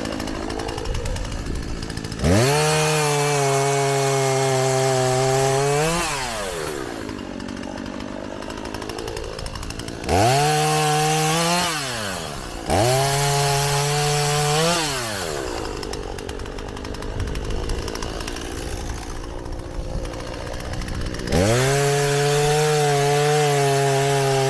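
Two-stroke chainsaw fitted with a new, sharp chain, revved to full throttle four times to cut through wood and dropping back to idle between cuts.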